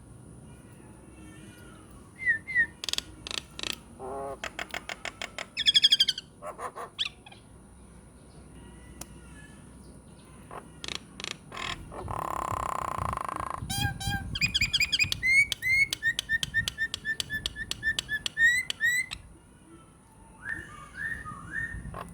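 Nias hill myna singing a varied medley of mimicked calls: short chirps, quick trills and whistles, then a harsh rasping call just past midway, followed by a fast run of repeated notes. A faint steady high-pitched tone runs underneath.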